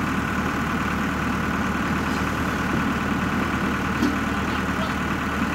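Farmtrac 6060 tractor's diesel engine running steadily at a constant speed.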